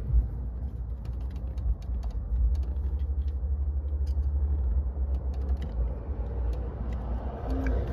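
Light, scattered clicks of a screwdriver working screws out of a plastic steering-column cover, over a steady low rumble.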